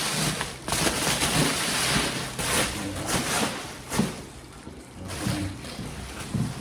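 Plastic bubble wrap rustling and crinkling as it is handled, in uneven swells with a few sharper crackles, quieter for a moment a little past the middle.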